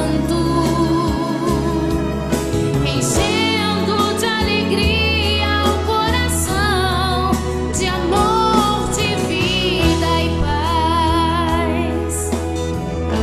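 Music from a Portuguese Christian worship song: a band with steady bass notes under a lead melody that wavers with vibrato.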